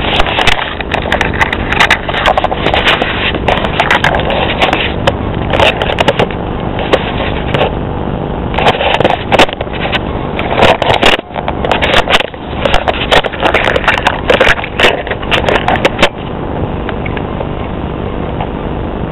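Handling noise from a handheld camera's built-in microphone: rapid irregular clicks, knocks and rubbing as the camera is gripped and moved about. It stops about 16 seconds in, leaving a steady background noise.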